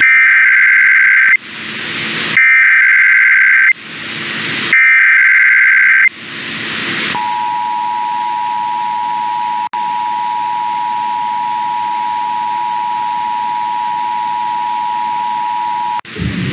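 Emergency Alert System test signal over a broadcast receiver: three SAME data-header bursts, each a harsh warbling screech of about a second, with static hiss between them. Then the EAS two-tone attention signal sounds as a steady dual-pitch tone for about nine seconds, with a brief dropout partway through, and cuts off abruptly.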